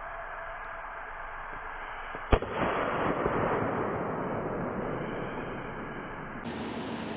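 Firework hissing, then a single loud bang about two seconds in, followed by a hissing, crackling spray that slowly dies down.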